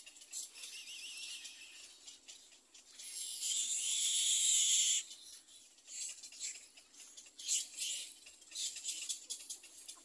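Little egret nestlings calling in the nest: high, hissy calls, with a louder sustained stretch from about three to five seconds in, then short calls in quick succession.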